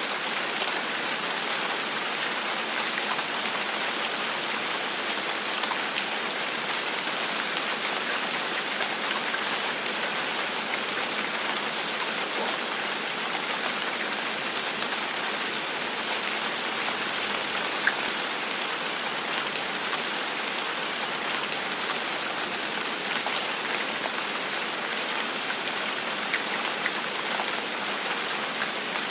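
Steady gentle rain falling on a surface, an even hiss of many fine drops with scattered small drip ticks.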